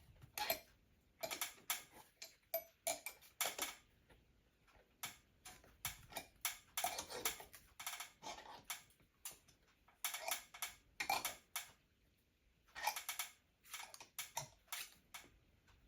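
Ratchet wrench clicking in repeated bursts of sharp ticks as a lag eye bolt is driven in, with short pauses between strokes.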